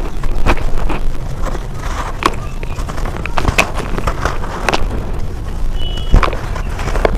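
Brown dirt crunching and crumbling close to the microphone: irregular sharp crackles over a steady gritty rumble.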